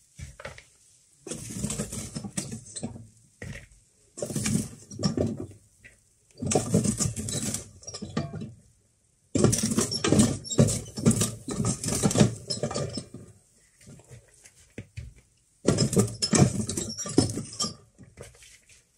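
Cooked sushi rice being scraped and scooped out of a rice cooker's inner pot, the scoop scratching against the pot. It comes in bursts of a second or two with short pauses between.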